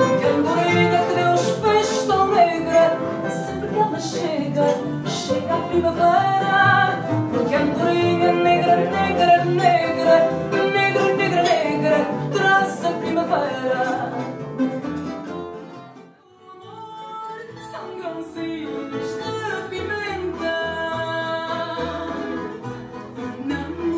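Background music: a Portuguese-language song, with a singer and guitar accompaniment. It dips almost to quiet about two-thirds of the way through, then picks up again.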